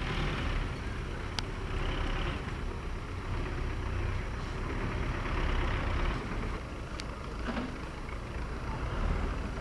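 Diesel engine of a tractor-based front loader running steadily, a low rumble, with two sharp clicks about a second and a half in and again near seven seconds.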